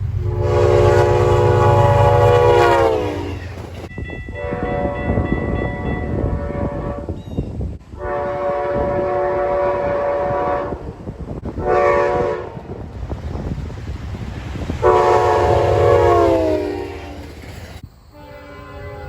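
Train's multi-note air horn sounding a run of blasts: a long blast that drops in pitch at its end, then long, long, short, long, the grade-crossing warning pattern. The last blast also sinks in pitch as the train passes. The train rumbles underneath.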